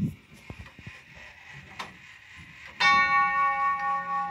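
A few faint clicks and knocks from the clock's works, then about three seconds in a tubular chime of a grandfather clock is struck and rings on with a steady bell tone. The clock is chiming when it should not, its chime mechanism out of order after a locking pin failed to seat.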